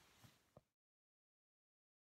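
Near silence: a faint, brief tick about half a second in, then the sound cuts to dead digital silence.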